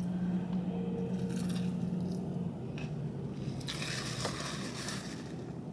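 A person eating: biting and chewing food, with a louder crunching, scraping burst about four seconds in.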